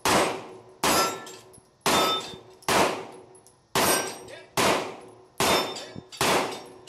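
Semi-automatic pistol fired eight times at an even pace, about one shot a second. Each shot is followed by the ring of a struck steel target.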